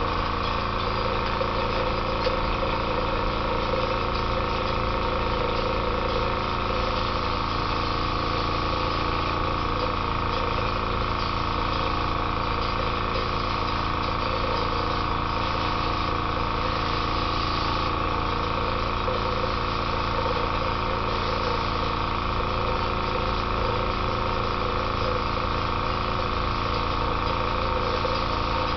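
Small airbrush compressor running steadily: a constant hum with an even, high whine.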